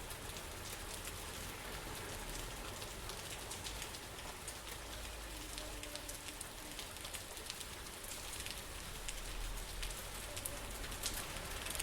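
Steady rain falling, with many individual drops ticking sharply over an even hiss and a low rumble underneath.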